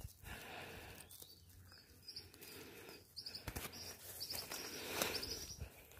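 A small bird chirping in short, high calls about twice a second, starting about two seconds in, over rustling and handling noise from the camera.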